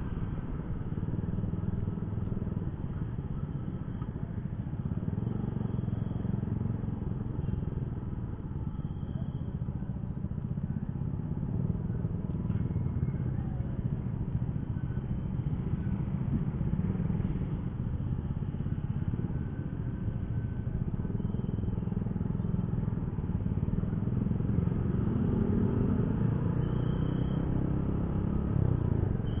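Underbone motorcycle's single-cylinder four-stroke engine (a Yamaha Jupiter Z1) running at low speed in slow, stop-and-go traffic. Its steady low rumble mixes with road and wind noise and with the surrounding motorcycles and cars.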